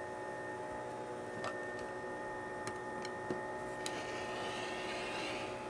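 A 60 mm Olfa rotary cutter rolling along the edge of an acrylic ruler through cotton fabric on a cutting mat, a faint rasping hiss from about four seconds in to near the end, after a few light clicks as the ruler is set in place. A steady hum runs underneath.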